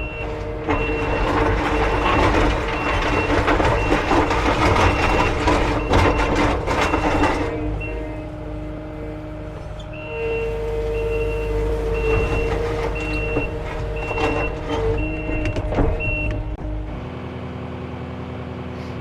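Kubota SSV75P skid steer working with its engine running hard and its reversing alarm beeping steadily, in two spells while it backs up. Near the end the beeping stops and the machine settles to a steadier, quieter hum.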